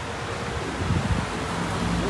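Wind blowing across the microphone: a steady rushing noise with a low rumble underneath.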